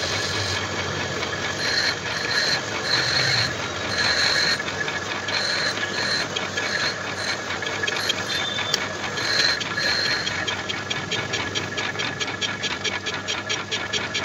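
Metal lathe running with a boring bar cutting inside a cast rotavator hub: a steady mechanical whir of the lathe, with short high squeals from the cut through the middle. A fast, even ticking sets in near the end.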